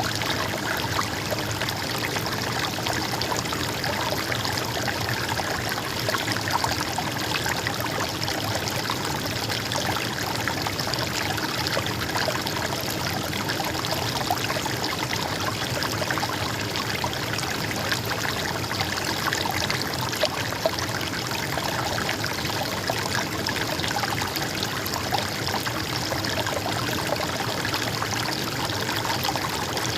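Stream water flowing and trickling steadily, an unbroken babble with small splashes.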